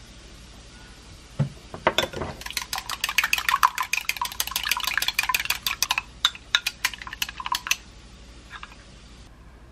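Wooden chopsticks beating a raw egg in a glass mug: fast clicking taps against the glass, about nine a second, slowing to a few separate taps before stopping.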